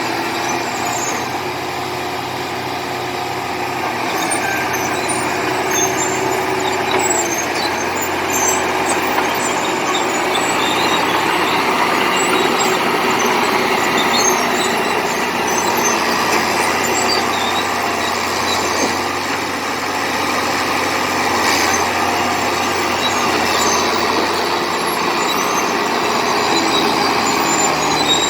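Komatsu D70LE crawler bulldozer's diesel engine running steadily under load as it pushes clay, with scattered faint high ticks and squeaks over the engine noise.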